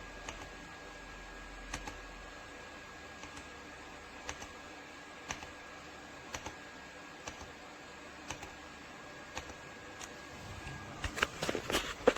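Keys of a YUNZII AL66 aluminum-case mechanical keyboard clicking one at a time, roughly once a second, then a quick run of typing near the end.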